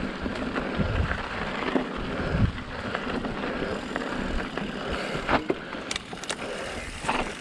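Mountain bike rolling along a dirt trail, with steady wind noise on the microphone and tyre and bike rattle. A few sharp clicks come in the second half.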